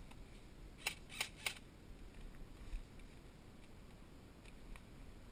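Three sharp clicks in quick succession, about a third of a second apart, roughly a second in, over faint background noise.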